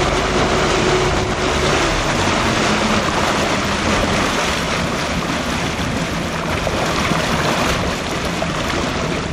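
Motorboat engine running steadily under a loud, even rush of water.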